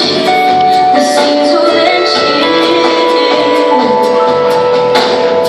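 Live worship band playing a slow song: long held notes over light, regular percussion strikes.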